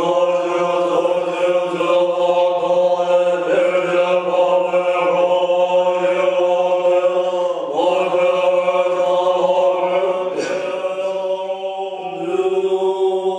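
Tibetan Buddhist monks chanting together in the deep multiphonic style: one low held drone with strong overtones ringing above it, the vowel and pitch shifting about eight seconds in. A brief sharp sound cuts through about ten and a half seconds in.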